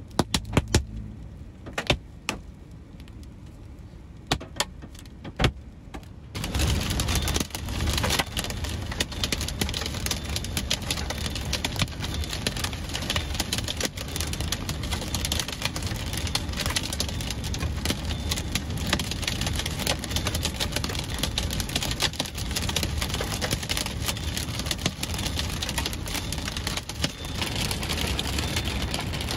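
Inside a moving car: for the first few seconds a handful of sharp knocks on the car. About six seconds in, a sudden steady wash of heavy rain beating on the car body and windshield sets in, over a low road rumble.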